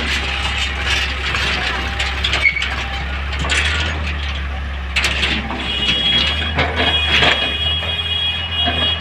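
Tata Hitachi EX200LC excavator working: its diesel engine runs steadily under irregular clanks, knocks and scraping. A steady high-pitched whine joins about six seconds in.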